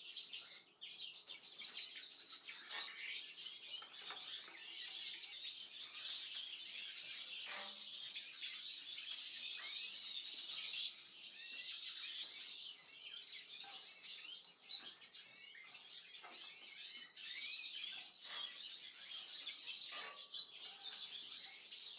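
Many small cage birds chirping and twittering, a dense and continuous chorus with no pause. A faint steady hum runs underneath.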